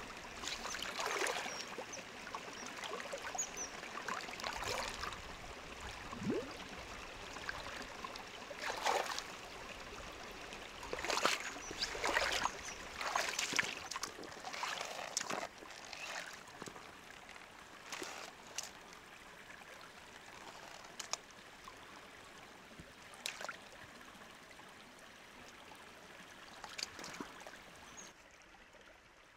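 Water trickling and splashing, with irregular short splashes and knocks, busiest in the first half and quieter after about sixteen seconds.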